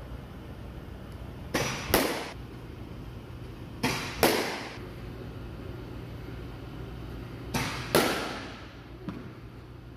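Softball batting practice off a pitching machine. Three times, the machine's thump launching the ball is followed less than half a second later by the louder crack of the bat hitting it. A low steady hum runs underneath.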